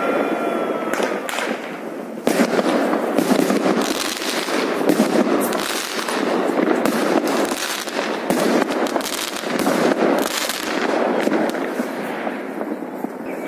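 Many fireworks and firecrackers going off at once: a dense, continuous crackle of overlapping bangs and pops with no pause. A short rising whistle sounds at the very start, and the barrage gets louder suddenly about two seconds in.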